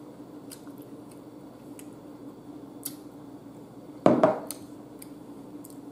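Hot sauce shaken from a bottle onto an air-fried chicken wing, with faint clicks, then one loud bite into the wing about four seconds in. A steady low hum runs underneath.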